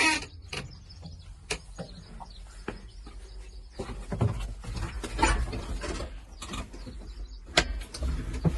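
Backhoe loader's diesel engine running with a steady low rumble, with scattered knocks and clanks from the working machine and a louder, noisier stretch about four to five seconds in.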